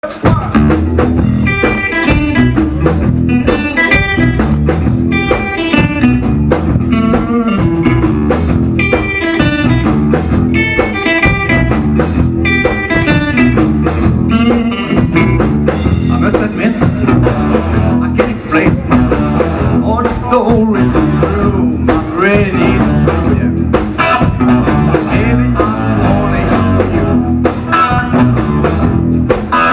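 Live band playing a blues-rock number, led by an electric guitar riff that repeats about every one and a half seconds. Around two-thirds of the way through, the guitar slides between notes.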